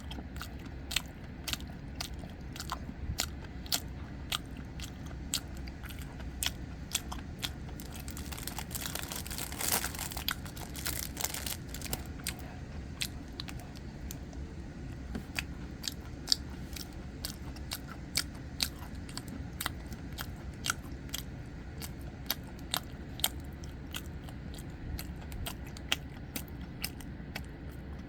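Close-up chewing and biting of soboro red bean bread with its crumbly streusel topping: a run of sharp, moist mouth clicks and crunches. A longer, denser stretch of noise comes about nine to eleven seconds in.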